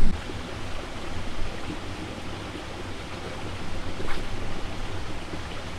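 Steady outdoor wind noise on the microphone, an even rush with no distinct events.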